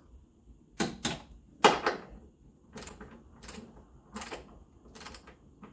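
Hand tools being handled, giving about eight separate sharp clacks and knocks of metal, the loudest a little under two seconds in.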